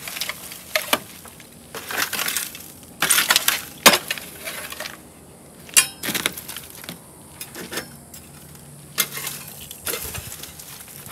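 Irregular metallic clinks, knocks and scraping of hand tools and parts being worked loose during the teardown of a 1965 VW Beetle chassis. One sharp knock about four seconds in stands out, followed a couple of seconds later by a short rattle.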